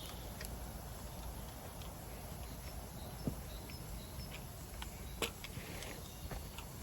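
Scattered, irregular small clicks and pops, two sharper ones about three and five seconds in, over a steady low outdoor background.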